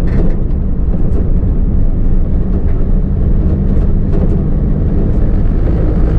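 Diesel recovery truck's engine and road noise droning steadily inside the cab while driving, with a few faint clicks.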